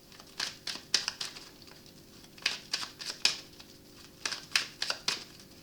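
Tarot cards being handled and laid out: short crisp snaps and flicks of card stock, coming in small clusters every half second to a second.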